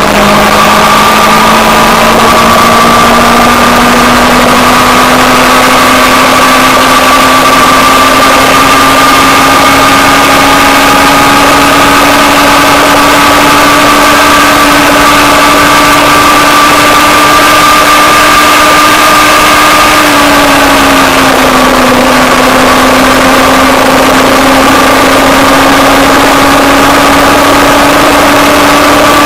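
Motorcycle engine running at cruising speed, its note slowly climbing as the bike gathers speed, easing down over a second or so about two-thirds of the way through as the throttle comes off, then climbing again. A steady rushing noise runs underneath.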